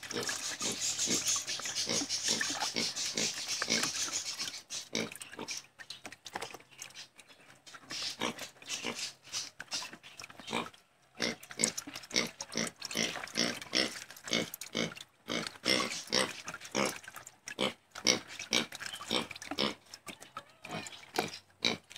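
Gloved hand squeezing and kneading fermented fish and molasses mash in a wire-mesh strainer: a run of wet squelches, about two or three a second, to press out the fish amino acid liquid. In the first few seconds the liquid can be heard trickling through the mesh.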